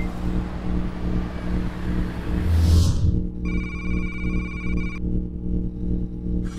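Background soundtrack of steady low music drone with a swelling whoosh that ends in a low hit about two and a half seconds in, then an electronic ringing tone, like a phone ring, for about a second and a half.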